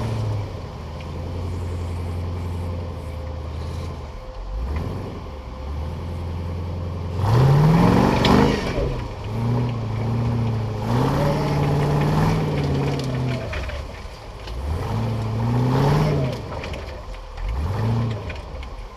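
Off-road buggy engine idling steadily, then revved hard about seven seconds in. It runs on at varying higher speeds with several more rises and falls of the throttle.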